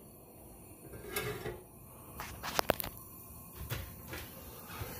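A few light knocks and clicks of things being handled at a kitchen stove, with a sharper knock about two and a half seconds in.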